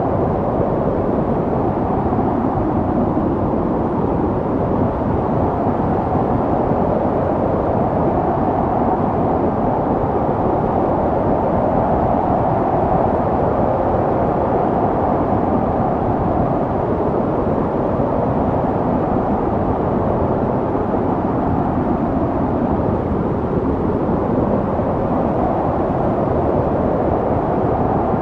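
Snowstorm wind: a steady, deep rushing noise that swells and eases slowly, with no gusts standing out.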